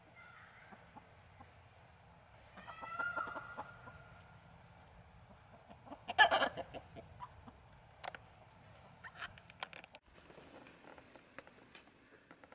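Domestic hens clucking close by, with one drawn-out call a few seconds in and a short loud burst of noise near the middle.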